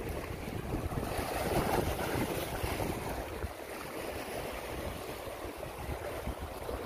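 Small sea waves washing and splashing against a rocky shore, with wind gusting on the microphone.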